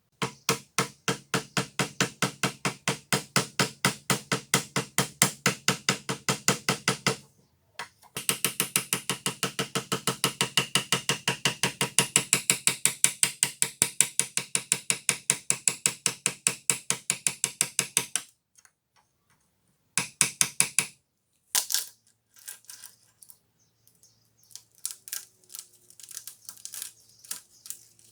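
Rapid, even ratchet-like mechanical clicking, about five or six clicks a second, in two long runs with a short break between them, then a short burst and scattered fainter clicks near the end.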